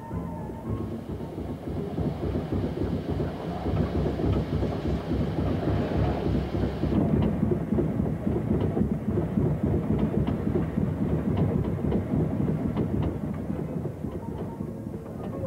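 Steam locomotive 740 074, an FS class 740 engine, on the move: a dense rumble with rapid clatter of wheels and running gear. A hiss sits over the first half and cuts off suddenly about seven seconds in.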